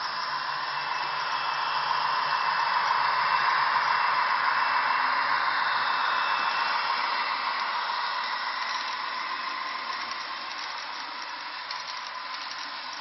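TT-scale model train running on an analog-controlled layout: a steady whirring hiss of the locomotive's electric motor and wheels on the rails. It grows louder over the first few seconds as the train passes close, then fades slowly.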